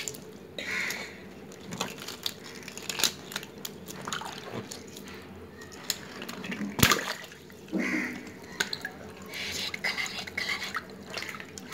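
Water splashing and dripping as hands squeeze and slosh water balloons in a shallow tub of water, with scattered small splashes and clicks. About seven seconds in comes one sharp, loud pop, a water balloon bursting.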